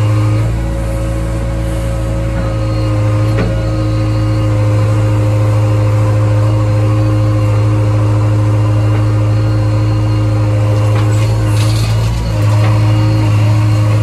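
JCB 3DX backhoe loader's diesel engine running steadily at working speed, heard from inside the operator's cab as the backhoe digs and dumps soil. A single knock sounds about three and a half seconds in.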